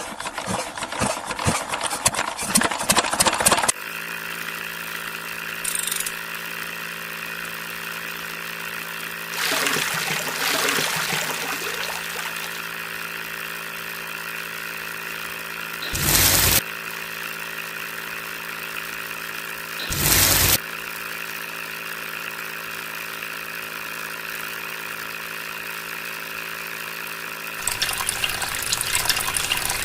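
Small electric motor of a homemade mini cement mixer running with a steady hum. It starts a few seconds in, after a few seconds of rasping scraping. Two short loud bursts come a few seconds apart near the middle, and scraping noise returns near the end.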